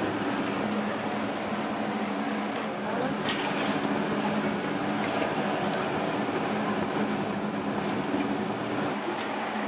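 Aquarium water churning and splashing at the surface of a large tank, steady throughout, over a constant low hum.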